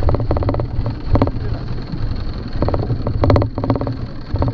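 Outboard motor running at idle: a steady low rumble with spells of rapid, even ticking.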